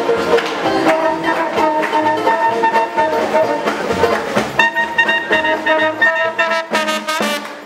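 Small live swing jazz band, with clarinet, trombone, upright double bass, banjo and drums, playing the closing bars of a tune. About four and a half seconds in the horns hold long notes, a few sharp drum hits follow, and the music stops at the very end.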